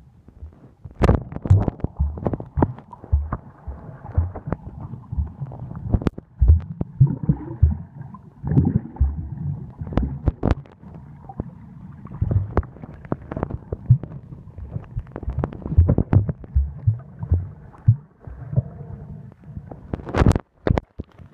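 Muffled underwater sound picked up by an iPhone held underwater while snorkeling: irregular low thumps, knocks and bubbling from swimming strokes and handling of the phone. There is a louder cluster of knocks near the end.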